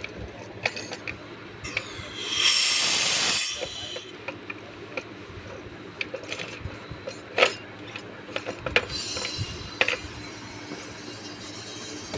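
Scattered sharp metal clicks and knocks of hand-tool repair work, with a loud hiss of escaping gas lasting about a second and a half a couple of seconds in, and a fainter hiss later.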